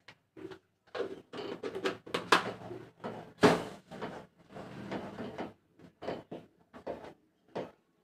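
Ladle scraping and knocking against the pot as thick rice-flour porridge is stirred: irregular strokes, densest in the first five seconds and sparser near the end.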